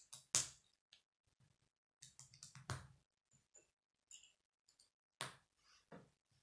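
K'nex plastic rods and connectors being snapped together and handled: a handful of sharp plastic clicks, the loudest just under half a second in, others near the middle and toward the end, with faint ticks between.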